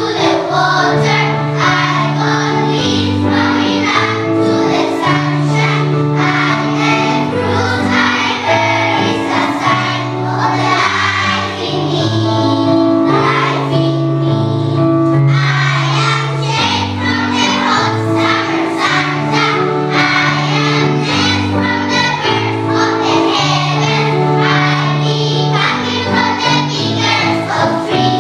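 Music: a group of children singing together over an instrumental backing with a steady beat.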